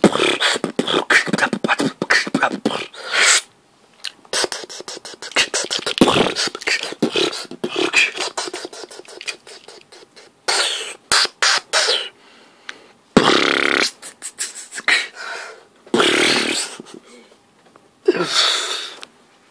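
Beatboxing: rapid mouth-percussion clicks, pops and hissing snare sounds mixed with a few held vocal notes, in uneven runs broken by short pauses.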